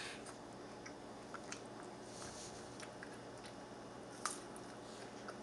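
Faint, scattered wet clicks of a bearded dragon biting and chewing a slice of pear, with one sharper click about four seconds in.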